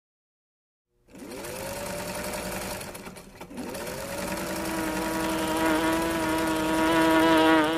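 Electric sewing machine motor spinning up with a rising whine and running at speed, stopping briefly about two seconds later, then starting up again and running steadily, loudest near the end.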